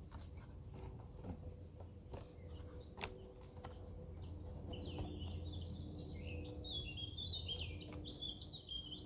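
A small songbird singing a fast, jumbled run of high chirping notes from about halfway through, over the steady low hum of distant traffic, with a few faint handling clicks.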